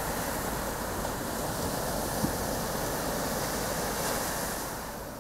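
Steady rush of ocean surf, with a single short knock about two seconds in, fading out near the end.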